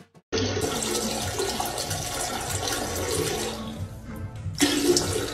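Toilet flushing: a rush of water that starts suddenly just after the start and slowly dies away, with a brief louder swell near the end.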